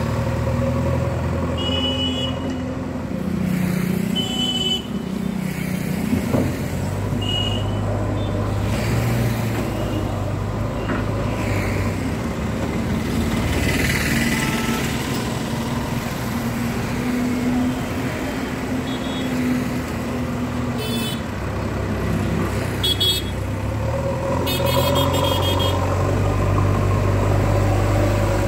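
JCB backhoe loader's diesel engine running as it works, growing louder near the end, with road traffic passing. Several short vehicle horn toots sound through it, some as quick runs of beeps in the second half.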